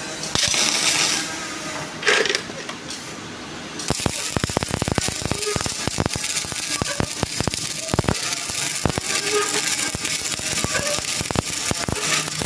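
Electric arc welding crackling: a hissing start with two louder bursts, then from about four seconds in a dense, irregular crackle of sharp snaps as the arc burns.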